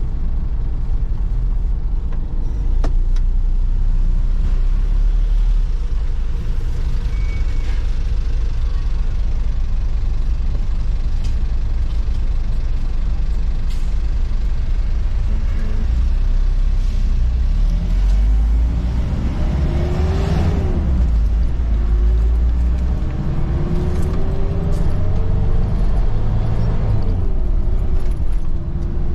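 Inside a moving vehicle: a steady low engine and road rumble, then, about two-thirds through, the engine note climbs in pitch as the vehicle accelerates, drops at a gear change, and climbs again.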